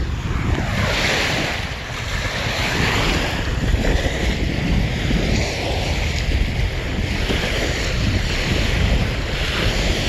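Small waves lapping and washing up on a sandy shore, the wash rising and falling every few seconds, with a steady low rumble of wind on the microphone.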